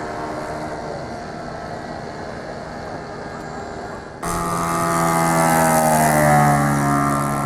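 Radio-controlled aerobatic model airplane's engine running in flight, heard at a distance. About four seconds in the sound jumps suddenly to a much louder, closer engine note that falls in pitch as the plane makes a low pass.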